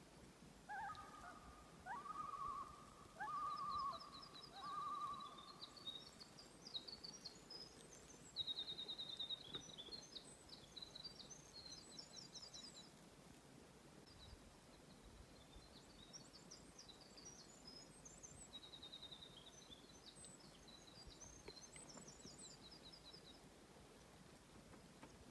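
Faint birdsong over a quiet outdoor hiss. A bird gives four pulsed, wavering calls in the first few seconds. Then a small songbird sings short, high, trilled phrases, five or six times, with pauses between them.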